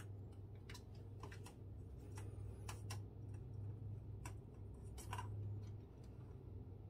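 A kitten batting at a plastic circular ball-track cat toy: a string of irregular light clicks and rattles as the ball knocks around the track, the loudest about five seconds in.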